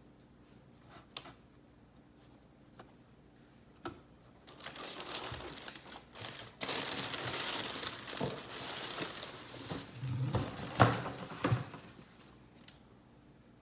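Shoe packaging being handled: a few light clicks, then crinkling and rustling for about seven seconds, with a sharp knock about eleven seconds in.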